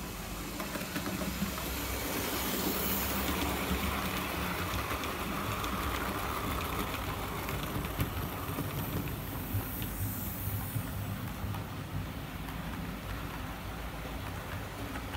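An OO gauge model train running past on its track, with a steady motor hum and the wheels rumbling with light clicks over the rail joints. It grows louder over the first few seconds as the coaches draw close, then holds steady.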